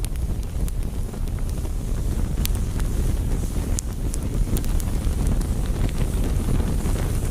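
Fire burning: a steady low roar of flames with scattered sharp crackles and pops.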